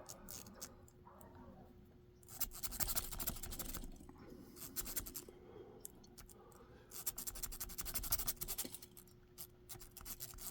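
A plastic zip tie being raked in and out of a lock's keyway under tension, scratching and clicking against the pins in three short bursts. The lock does not open: the zip tie is not reaching all the pins.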